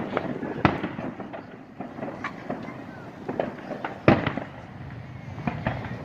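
Fireworks going off in a string of sharp bangs and pops, the loudest about four seconds in.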